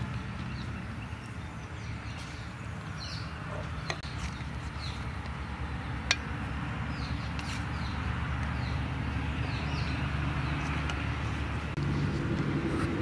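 A steady low motor hum, like an engine running nearby, with faint bird chirps over it. Two sharp clicks about four and six seconds in, as a serving spoon knocks against the plate.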